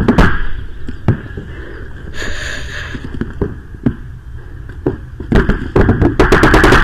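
Scattered pops of paintball fire. From about five seconds in, a Planet Eclipse CS1 paintball marker fires loud, fast strings of shots.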